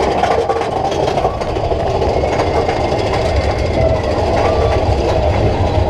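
Big Thunder Mountain Railroad mine-train roller coaster running along its track, heard from a rider's car: a steady low rumble of the train with clattering from the wheels on the rails.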